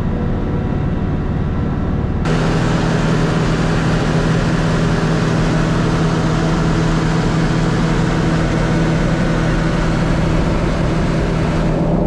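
Farm tractor's diesel engine running steadily, heard from inside the cab. About two seconds in, the sound switches abruptly to a louder, hissier engine drone with a steady low hum, from the cab of a front-loader tractor.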